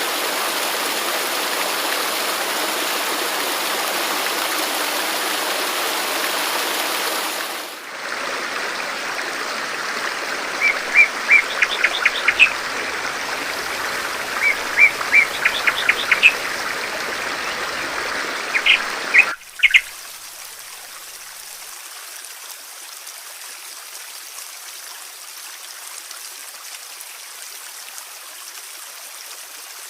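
Steady running water, loud and even at first. About eight seconds in it switches to a different stretch of flowing water, over which a bird sings several bursts of quick, repeated chirps. Near the two-thirds mark it cuts abruptly to a quieter, thinner flow of water.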